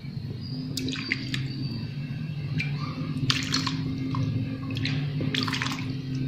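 A steel ladle pouring sugar syrup from the pot over ice cubes in a bowl: liquid splashing and dripping, with several short clinks scattered through, over a steady low hum.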